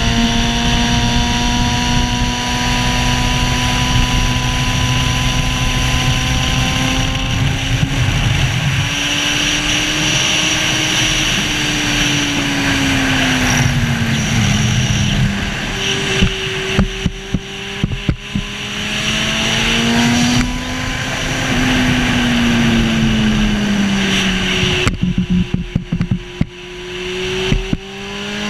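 Racing sidecar outfit's engine running hard at speed, with wind rushing over the microphone. Its pitch climbs under power and drops off twice as it slows, with short crackles while the revs fall.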